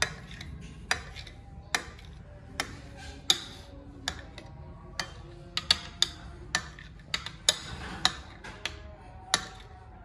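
Kitchen knife chopping through set jelly and tapping the plate beneath: sharp irregular clicks, about two a second.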